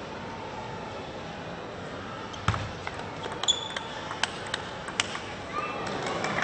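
Table tennis ball clicks: a sharp knock, then a quick run of ball-on-table and ball-on-racket hits in a rally. Crowd noise starts to rise near the end.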